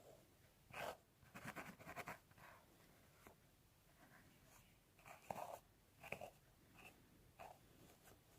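Fingernails scratching through hair on a scalp: short, faint scratchy strokes in a few clusters, with quiet gaps between.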